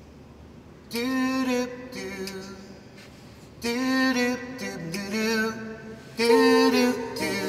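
A slow song with a solo sung voice in three phrases, about a second, three and a half seconds and six seconds in, with quiet gaps between them, played through an aftermarket car audio system of Morel Virtus speakers driven by an Alpine PDP-E800 amplifier/DSP and heard in the car's cabin.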